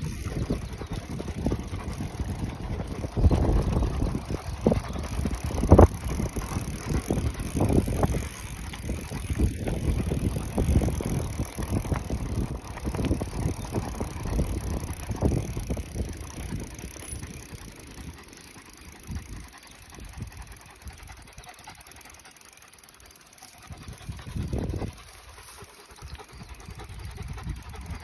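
Irregular crunching, knocking and rumbling from movement along a dirt track, with wind buffeting the phone's microphone; it grows sparser and quieter about two thirds of the way through.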